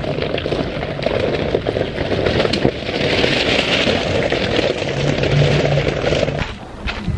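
Pickup truck rolling slowly past over loose river rock, its tyres crunching and crackling on the stones. The crunching is loudest about three to four seconds in and drops away near the end.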